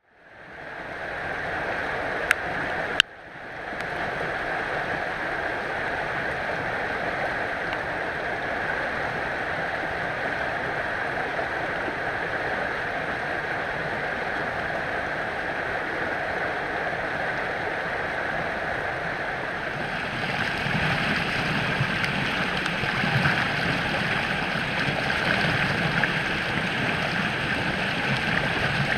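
Storm-swollen, muddy creek rushing fast over rocks, running higher than usual from rain runoff. The water noise is steady and even, with two sharp clicks near the start, and it grows louder and fuller about two-thirds of the way through.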